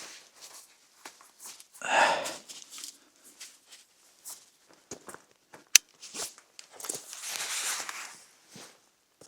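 Irregular footsteps and rustling of clothing and gear while walking, with a louder rustle about two seconds in, a sharp click near the middle, and a longer rustle near the end.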